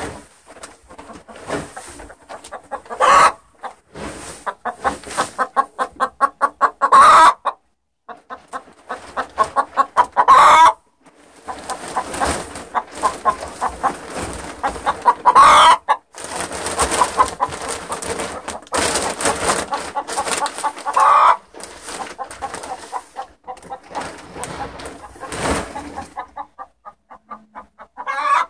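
A hen's egg song: runs of quick clucks building into a loud, rising squawk, repeated about six times.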